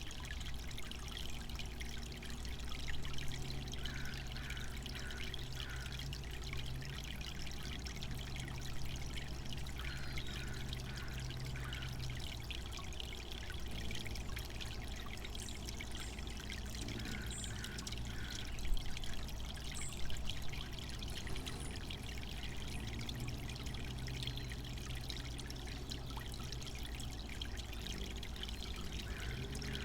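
Water fountain pouring and trickling steadily. Faint groups of three or four short notes recur every few seconds over the water.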